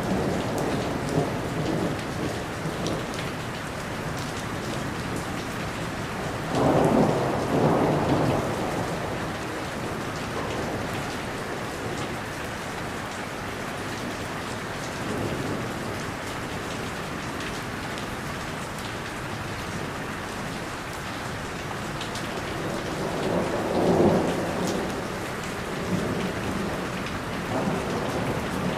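Steady rain falling, with thunder rumbling over it; the loudest rolls of thunder come about seven seconds in and again near the middle of the last third.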